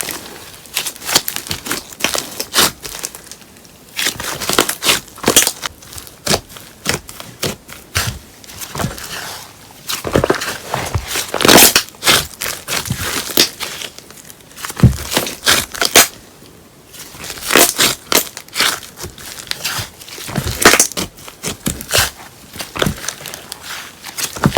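Slime mixed with paper clay being squished, kneaded and stretched by hand, giving dense irregular sticky clicks, crackles and wet pops.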